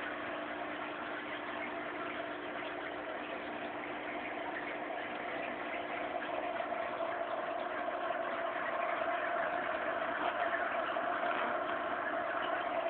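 Aquarium pump running: a steady mechanical hum with a hiss, a little louder from about six seconds in.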